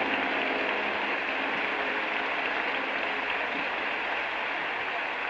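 Concert audience applauding steadily as the band's last held notes die away in the first moment.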